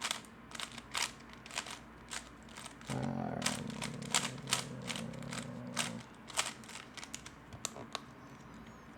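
A 3x3 Rubik's Cube being turned, its layers clicking in quick, irregular runs. A low steady hum sounds for about three seconds in the middle.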